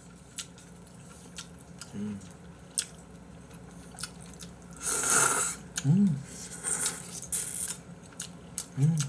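Noodles being slurped and chewed, with two longer hissing slurps and many small clicks and smacks from mouth, chopsticks and bowls, and a few brief hums.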